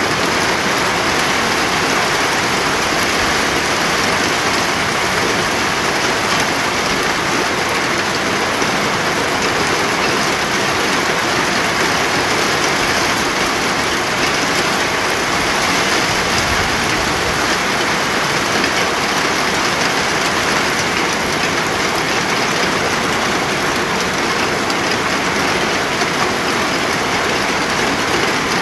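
Steady heavy rain falling, an even hiss of drops on surfaces that holds level throughout.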